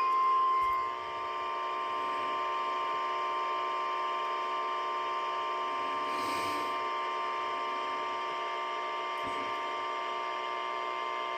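Light-activated burglar alarm kit sounding: a steady, high-pitched electronic alarm tone with fainter tones beneath it, a little louder in the first second.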